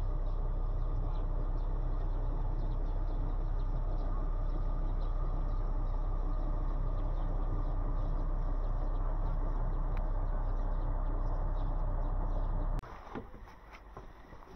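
Steady wind rumble buffeting the camera microphone, a loud low blustering noise that cuts off suddenly about thirteen seconds in.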